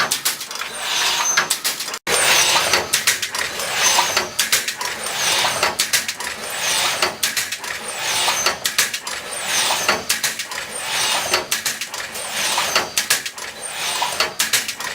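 MW-2 multi-contact resistance welding machine for wire mesh running in its working cycle, with a rhythmic surge of clattering and clicking repeating about once a second. A brief cut in the sound about two seconds in.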